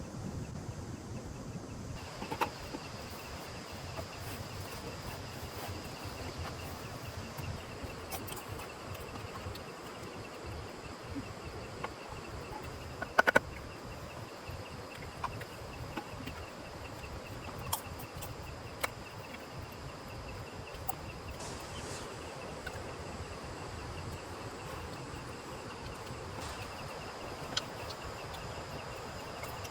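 Insects trilling steadily in a rapid, even pulse, over a low background hiss, with scattered clicks and a sharper knock about 13 seconds in.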